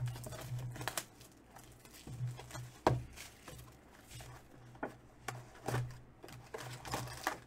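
A cardboard box of trading-card packs being opened and handled: scattered light taps, knocks and rustles, with a sharper knock about three seconds in as the packs come out onto the table.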